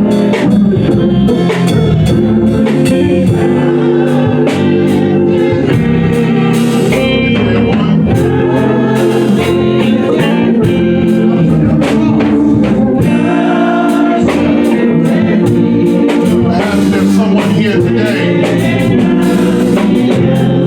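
Gospel music with singing over guitar, bass and drums, played at an even loudness.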